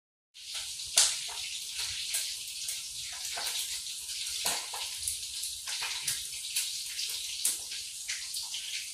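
Hot oil sizzling in a pan, a steady hiss dotted with frequent crackles and pops, the loudest pop about a second in.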